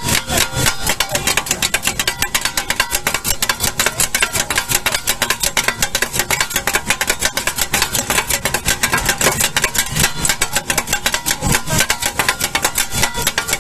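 Kothu parotta being chopped on a flat iron griddle: two steel blades clanging rapidly against the griddle in a fast, steady metallic rhythm of several strikes a second.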